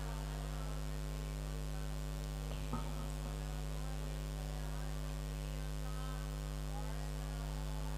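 Steady electrical mains hum from the recording and sound-system chain, with a single faint click about two and a half seconds in.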